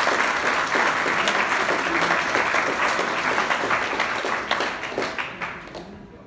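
Audience applauding with many hands clapping, tapering off and dying away about five to six seconds in.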